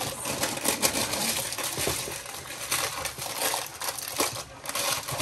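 A sheet of grease paper (baking paper) crinkling and crackling as it is handled and pressed over a cooking pot to seal it for steaming, with many quick crackles throughout.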